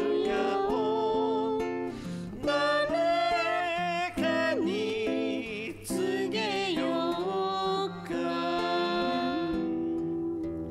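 Acoustic guitar accompanying a voice singing a slow song, the sung notes held with vibrato.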